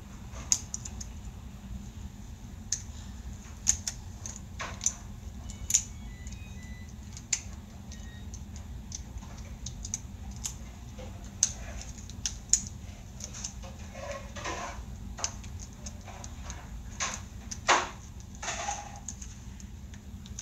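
Small plastic Bakugan toy handled and worked in the fingers: scattered sharp plastic clicks every second or two, with a few soft rustles near the end, over a low steady hum.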